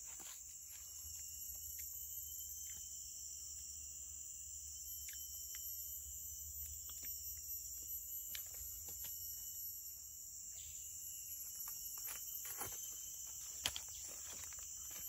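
Steady high-pitched drone of a forest insect chorus, with scattered light clicks and rustles of dry leaf litter and a sharper click near the end.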